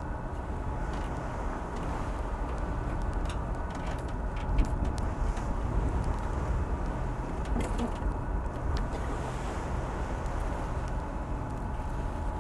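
Steady low rumble of a sailing boat motoring into a headwind, with wind on the microphone, and scattered knocks and clicks from the boom and its fittings as a crewman climbs along it.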